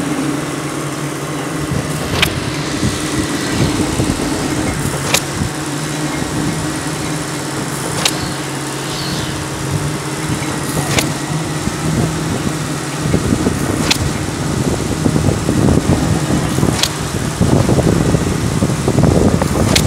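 A monkey-lift building-material hoist running steadily with a low hum while it lowers a bucket of cement bags on its wire rope. A sharp tick comes about every three seconds, and the sound grows rougher and louder in the last few seconds.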